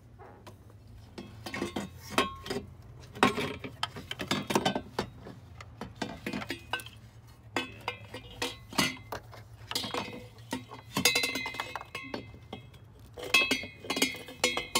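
Stainless steel exhaust test pipe clinking and knocking against metal engine-bay parts as it is worked into place, in many irregular sharp clinks, some ringing briefly. The clinks come thickest in two spells, early on and again in the last few seconds.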